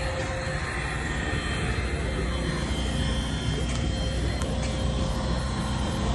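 Large diesel truck engine idling steadily with a low, even rumble, with a few faint ticks partway through.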